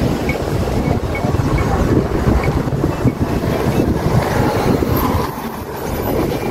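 Wind buffeting an outdoor microphone: a dense, uneven rumble that eases briefly about five seconds in.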